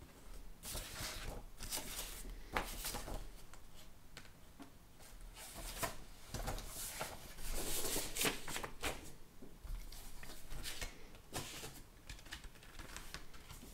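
Paper and cardboard rustling and scraping as a vinyl LP is slid in and out of its white paper inner sleeve and the gatefold album cover is handled, with a few sharp clicks among the uneven rustles.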